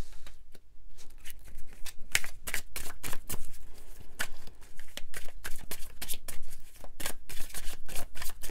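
Tarot deck shuffled by hand: a quick, irregular run of crisp card clicks, starting about a second in.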